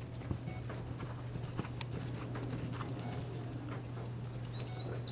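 Hoofbeats of a horse being ridden, a few sharp knocks among softer footfalls, over a steady low hum.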